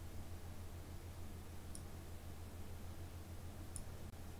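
Two faint computer mouse clicks about two seconds apart, over a steady low electrical hum.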